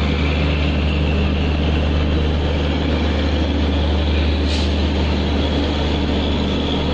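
Diesel locomotive engine running steadily: an even, deep drone with a few steady low tones under a haze of noise. A brief high hiss comes about four and a half seconds in.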